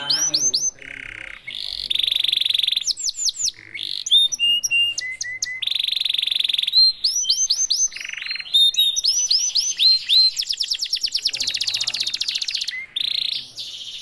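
Red-intense canary singing a long, varied song: rapid trills, quick rising sweeping notes and buzzy rolls, with only short breaks.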